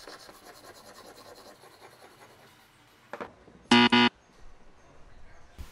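Steel chisel blade scraping back and forth on a sharpening stone, worked freehand. About four seconds in comes a loud, short two-part buzzer sound effect, the kind used to mark something as wrong.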